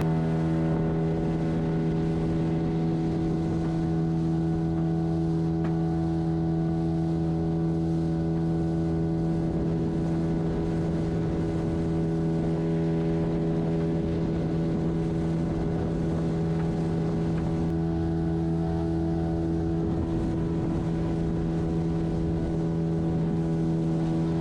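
Small fishing boat's motor running steadily at a constant speed, its pitch unchanging, with water and wind noise underneath.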